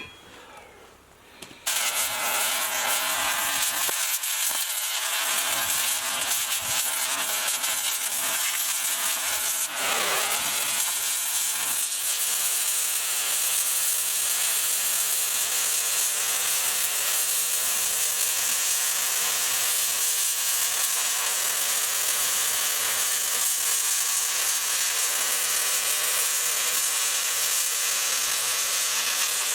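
Oxy-acetylene cutting torch running with a steady hiss through steel plate, starting abruptly a couple of seconds in and holding even throughout.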